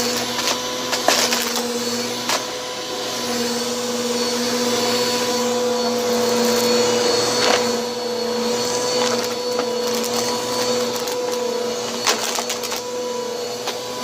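Bissell vacuum cleaner with its brushroll spinning, running with a steady motor whine. A few sharp cracks and crunches sound as bits of dirt are picked up.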